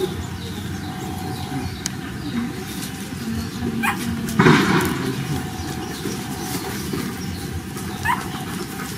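Small puppies whimpering and yelping in short rising cries while being held and handled by a monkey, with a louder, rougher burst about halfway through.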